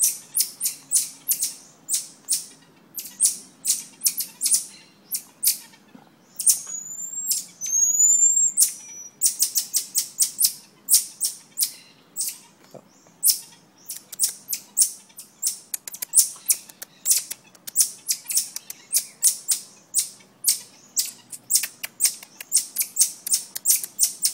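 Marmosets giving rapid, high-pitched chirping calls, several a second, with a few short rising whistles about seven seconds in.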